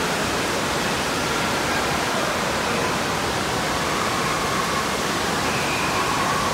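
Steady din of an indoor water park: rushing water from the pool and slides, with faint distant voices.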